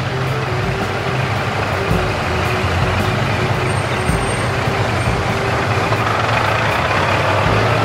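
A heavy vehicle's engine running steadily: a dubbed sound effect, not the hand-pushed toy grader itself.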